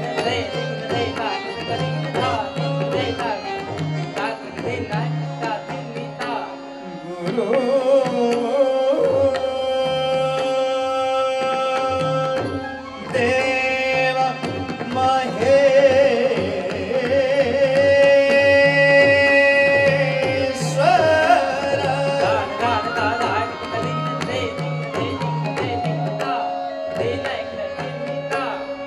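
Live Indian classical dance music: a hand drum playing a quick rhythm under a sustained melody on flute and harmonium, with singing. The melody rises higher and louder about halfway through, then settles back.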